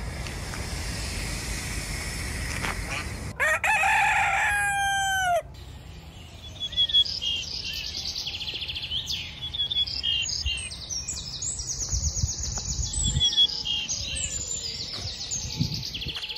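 A rooster crows once, about three seconds in: a loud cock-a-doodle-doo that steps down in pitch and cuts off suddenly. After it, small birds twitter in rapid high chirps. A steady rushing outdoor noise runs before the crow.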